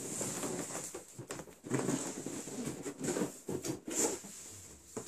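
Large cardboard box being handled and set down on a tile floor: irregular cardboard rubbing and scraping with a few soft knocks.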